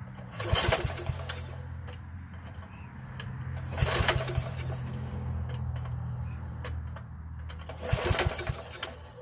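Recoil starter rope pulled three times, a few seconds apart, on a Troy-Bilt wide-cut mower's Briggs & Stratton engine that does not start. A steady low engine hum runs underneath throughout.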